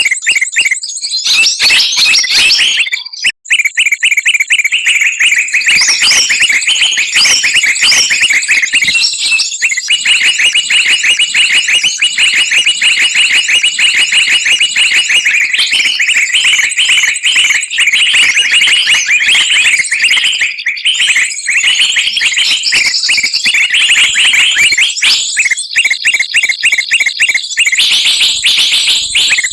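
Bird-trapping lure recording of many small songbirds chattering together: continuous loud, rapid high-pitched chirps and trills layered over one another, with a brief break about three seconds in.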